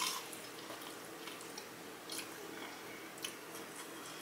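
A crunchy bite into a Flamin' Hot Cheeto-coated fried pickle right at the start, then soft chewing with a couple of faint crunches.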